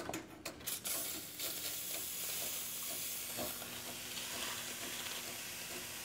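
Diletta Mio espresso machine's steam wand opened. It spits and sputters with a few clicks for about the first second, then settles into a steady hiss of steam.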